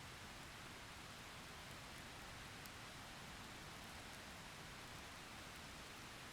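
Faint, steady rain falling in a thunderstorm: an even hiss with a few light drop ticks, between thunderclaps.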